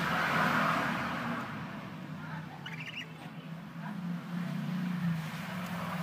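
A budgerigar gives a short chirp about two and a half to three seconds in, with a few fainter calls around it, over a steady low background hum and a hiss that fades after the first second or so.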